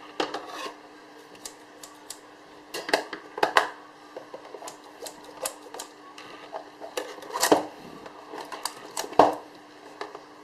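Ice cream packaging being handled and opened: irregular clicks, taps and crinkles, a few louder knocks among them, over a steady faint hum.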